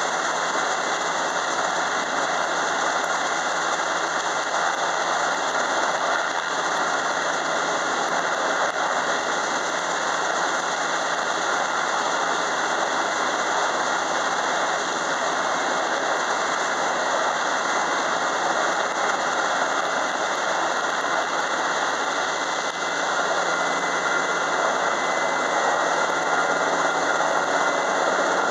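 Sikorsky S-92 helicopter running on the helideck with its rotors turning: a steady turbine whine and rotor noise. It gets a little louder about three-quarters of the way through.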